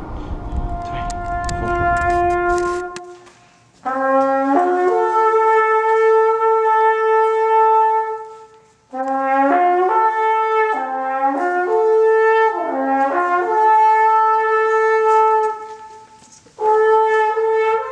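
A solo trumpet plays a slow, mournful melody in three phrases, each a few short rising notes ending on a long held note, in the manner of a bugle call for a mock funeral. It is preceded by a few seconds of rushing noise with scattered horn notes.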